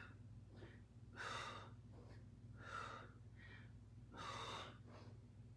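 A woman's heavy breathing during dumbbell rows: sharp, faint exhales through the mouth about every second and a half, with softer breaths between.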